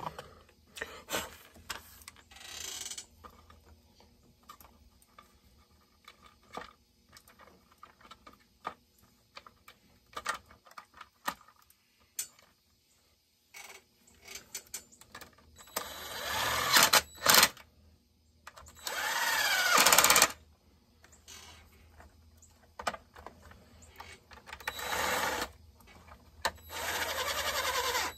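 Cordless power driver running in several short bursts of about a second each, its motor pitch rising and falling, as it drives fasteners into a chainsaw during assembly. Between the bursts come clicks and clinks of parts being handled.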